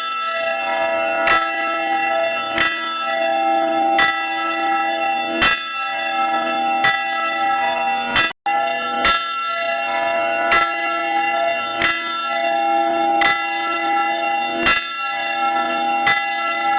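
A church bell tolling, struck at an even pace of about one stroke every second and a half, each stroke ringing on into the next. There is a brief dropout about eight seconds in, after which the tolling resumes at the same pace.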